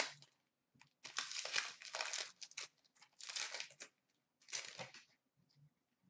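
Hockey card pack being torn open, its wrapper crinkling and the cards rustling, in several short bursts.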